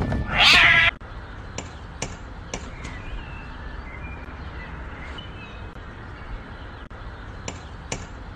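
A cat gives one loud yowl in the first second. Then a few sharp metallic knocks from a front-door knocker being rapped by a cat's paw, a cluster about two seconds in and two more near the end.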